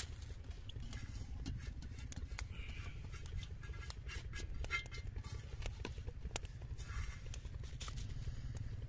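Hands patting and pressing wet masala paste onto a raw fish lying on paper, and scooping it from a steel bowl. The result is an irregular string of short wet pats and taps over a steady low rumble.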